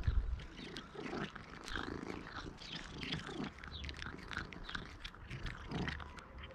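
Cat crunching dry kibble close up: irregular sharp crunches throughout, over a low purr. A low thump right at the start is the loudest moment.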